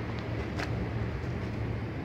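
Steady low rumble and hum of urban background noise, like distant traffic, with a couple of faint clicks in the first second.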